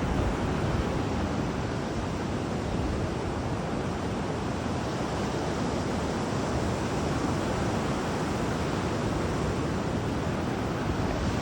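Ocean surf washing steadily onto the beach, a continuous rush of waves with the tide coming in.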